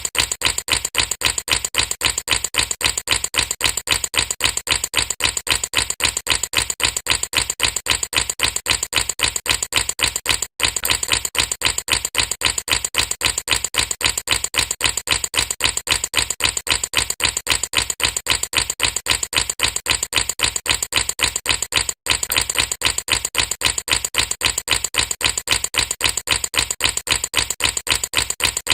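Air bubbles popping in a rapid, very even run of clicky pops that breaks off for an instant twice.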